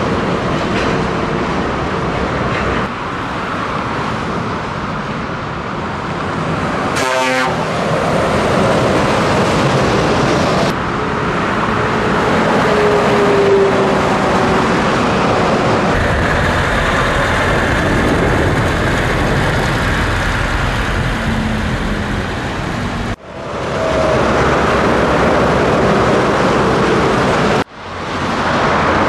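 Scania V8 truck engine running on the road, with heavy road noise. The sound breaks off sharply twice near the end and comes straight back.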